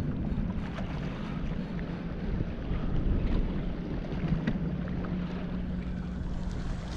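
Wind buffeting the microphone over water moving around a kayak, with a few faint clicks and a faint steady low hum in the second half.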